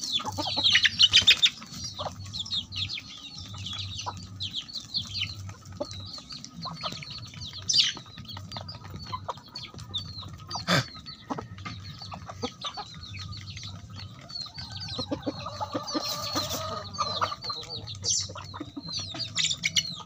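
Desi chickens clucking and calling, with many short, high calls throughout, busiest in the first couple of seconds. A single sharp knock about eleven seconds in.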